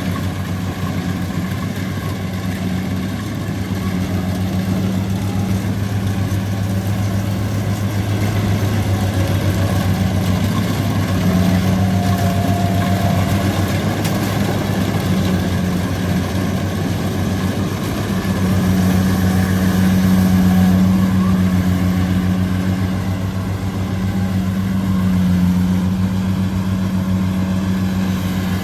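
Rice combine harvester's engine running steadily with a deep, even drone that swells and eases a little from moment to moment.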